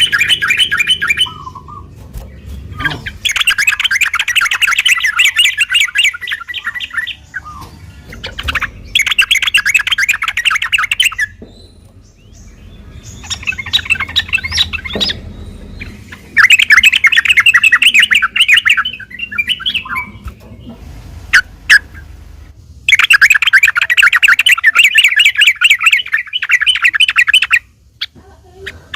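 Yellow-vented bulbul (trucukan) singing in repeated bursts of fast, rolling chattering song, about five phrases of two to four seconds each with short pauses between them.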